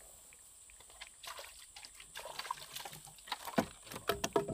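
Small water sloshes and irregular light knocks and scrapes as a plastic bottle and gear are handled over the side of a small fibreglass boat. The knocks start about a second in and come thicker over the last two seconds.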